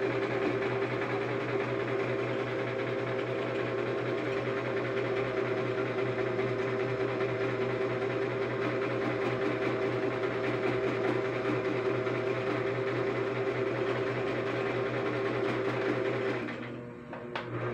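Butterfly electric sewing machine running at a steady speed as it stitches fabric, with a fast, even stitching rhythm; it stops about a second before the end, followed by a few light clicks.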